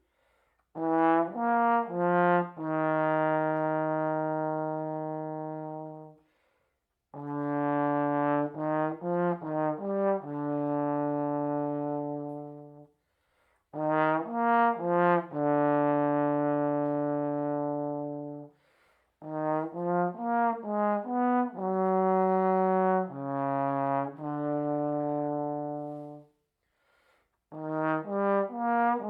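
Solo trombone playing a slow melody in phrases, each a few quick notes that lead into a long held note, with short pauses between the phrases.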